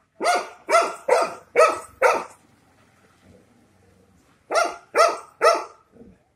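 Dog barking at a cow: five quick barks, a pause of about two seconds, then three more.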